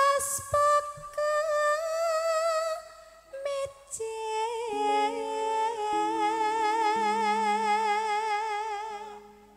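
A woman sings a slow Javanese langgam melody into a microphone, holding long notes with a strong vibrato and rising to a higher held note partway through. Under her, steady accompanying notes step downward in the second half, and the music fades out near the end.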